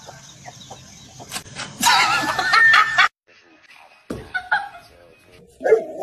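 Chicken squawking loudly for about a second, over a harsh hiss, before a sudden cut.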